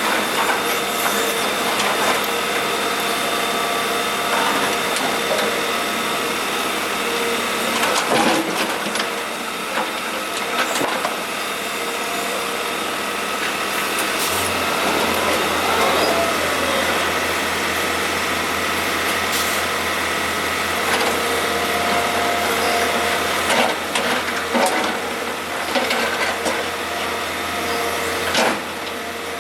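Kobelco SK125W wheeled hydraulic excavator's diesel engine and hydraulics running steadily under work, with a low hum that gets louder about halfway through. Scattered knocks and clatter of broken asphalt rubble come from the bucket, several in quick succession near the end.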